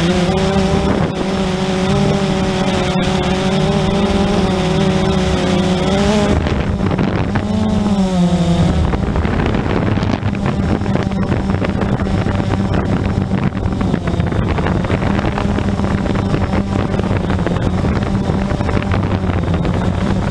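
Drone's electric motors and propellers humming steadily, the pitch of the stacked tones wavering slightly as the motors adjust, with wind noise on the microphone. About nine seconds in the clear tones blur into a rougher, rushing hum.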